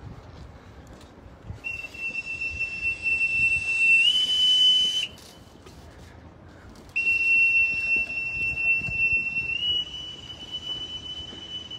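Boatswain's call (bosun's pipe) blown twice, each a long high steady whistle that steps up to a slightly higher note partway through; the second call sags a little in pitch at the end.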